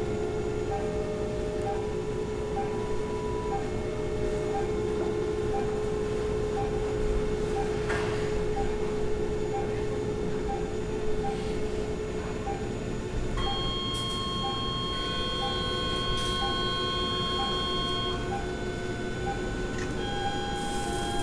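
Hospital machine ambience: a regular short electronic beep, like a patient monitor's, repeats through the whole stretch over a steady hum and a held low tone that fades out about halfway. About two-thirds of the way in, several sustained electronic tones at different pitches join, like alarm or machine signals.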